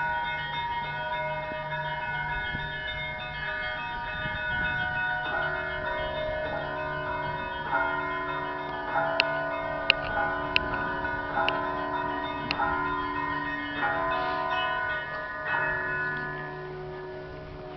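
Russian Orthodox church bells ringing to call the evening service: several bells of different pitches struck again and again, their tones overlapping and ringing on over a low, steadily pulsing bell. The ringing eases off near the end.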